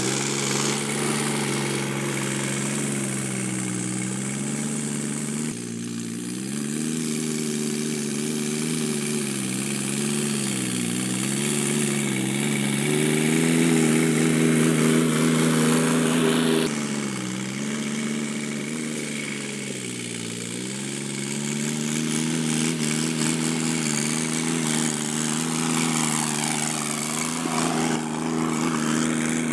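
Sonalika DI 50 RX Sikander tractor's diesel engine running steadily while driving a rotavator through the soil, its pitch dipping briefly and recovering several times as it works under load.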